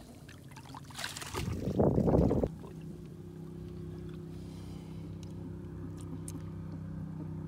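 A loud rushing splash-like burst about one and a half seconds in, as a hooked catfish thrashes at the surface beside the boat. Then a steady low boat-motor hum starts abruptly and runs on.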